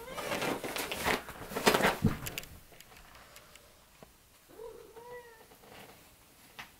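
A couple of seconds of harsh, noisy sound, then one short meow from a cat, rising and falling, about two-thirds of the way through.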